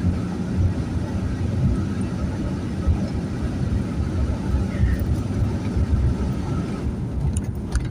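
Steady low road and engine rumble inside a moving pickup truck's cab, picked up by a phone mounted on the windshield.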